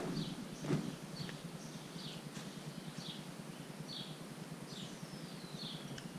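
A bird chirping: short, falling high chirps about twice a second, with one longer falling whistle about five seconds in. There are a couple of soft thumps at the start.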